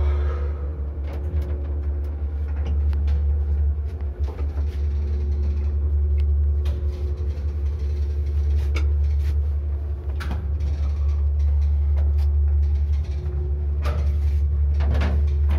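KMZ passenger elevator car travelling, heard from inside the cabin: a steady low hum with a faint steady tone above it, and scattered clicks and knocks from the car, with a few louder clicks near the end.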